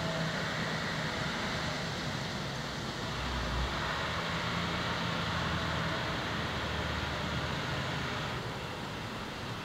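Steady outdoor background noise with a faint low hum that comes and goes, like distant engines.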